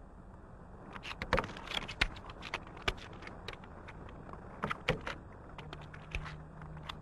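Playing cards being picked up one after another from a polished table, making a run of small sharp clicks and taps. A low steady hum comes in about five and a half seconds in.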